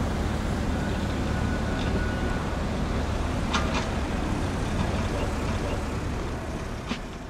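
Road traffic: a car driving past with a steady low rumble of engine and tyres. A couple of short, high-pitched squeaks come about halfway and again near the end.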